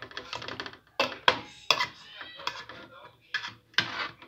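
Metal spatula clinking and scraping on an aluminium baking tray of freshly baked biscuits: a string of sharp clinks with short scrapes between them.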